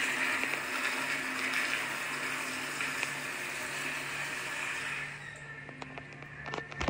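Commercial toilet with an exposed chrome flushometer valve flushing: a steady rush of water through the bowl that fades out about five seconds in.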